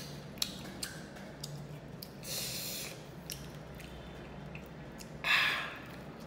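Close-up eating sounds of small fried fish being chewed: scattered wet clicks and smacks of the mouth, with two short, sharp intakes of breath through the nose and mouth, about two and a half and five and a half seconds in, the second the louder.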